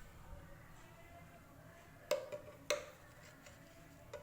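Two light clinks of a utensil against a bowl, about half a second apart, each with a short ring, then a faint tick near the end.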